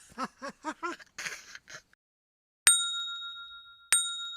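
A quick laugh-like run of short voiced notes, then a bell sound effect struck twice, about a second apart: two bright dings that ring on after each strike.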